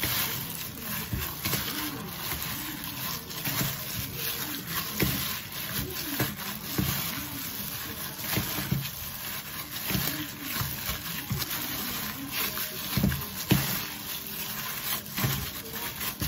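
A plastic food-prep glove crinkling and sticky tapioca-flour dough squishing as a gloved hand kneads it in a plastic mixing bowl: an irregular run of rustles and soft knocks.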